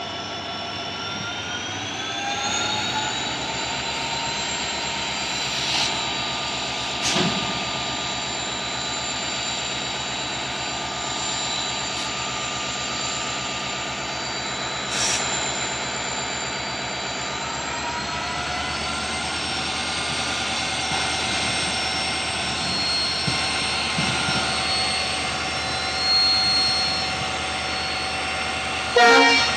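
WDG4 diesel locomotive's turbocharged two-stroke EMD 710 engine humming steadily with a whining turbocharger. Its pitch rises about two seconds in and again around eighteen seconds in as the throttle is opened up. A few sharp clicks break in, and there is a louder knock near the end.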